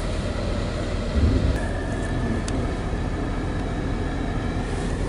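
Car engine running low and steady, heard from inside the cabin of an SUV rolling slowly in reverse. The low rumble swells briefly about a second in. A thin, steady high tone comes in about one and a half seconds in and stops near the end.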